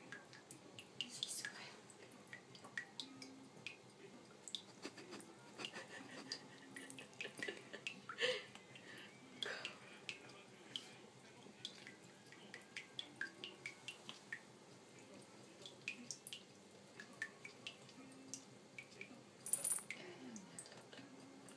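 Small water splashes and drips, irregular and at a low level, as a cat paws and plays in water, with a few louder splashes now and then.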